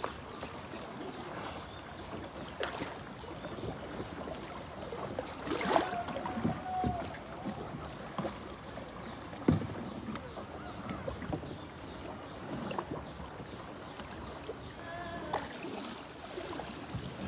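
Wooden paddle strokes splashing in floodwater as a long narrow boat is paddled along, with water washing along the hull and a few sharp knocks, the loudest near the middle.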